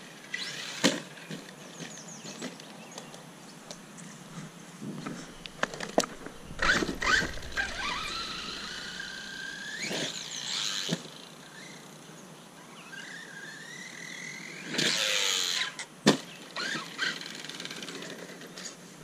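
Redcat Landslide XTE electric RC monster truck's brushless motor whining, rising in pitch as it accelerates in bursts, with several sharp knocks from the truck hitting the ground, the loudest about sixteen seconds in.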